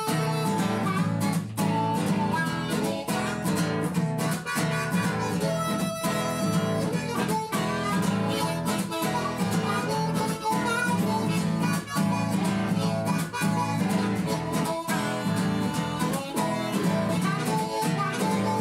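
Background music: an instrumental stretch of a blues-rock song between sung verses, with a steady beat.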